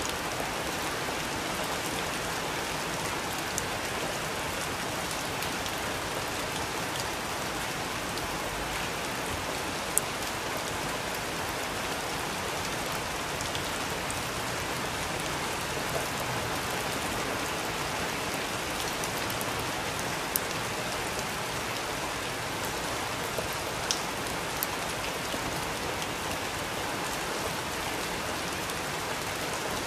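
Steady rain falling, a dense even hiss, with a few sharp ticks of single drops striking a hard surface. The sharpest tick comes about ten seconds in.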